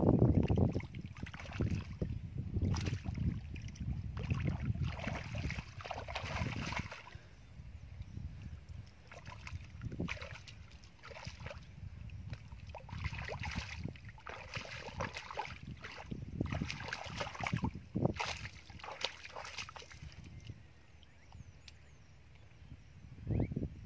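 Hands digging and pressing into waterlogged sand and mud at the edge of a shallow puddle, feeling for fish buried in it: irregular squelching and sloshing, louder at the very start and again near the end.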